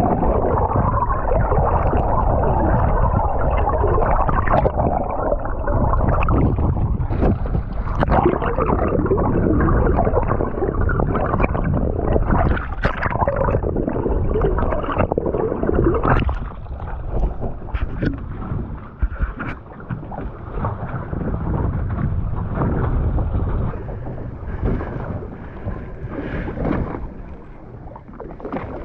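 Wind buffeting the microphone over water sloshing and splashing against a boat at sea. The noise is loud at first and eases about halfway through.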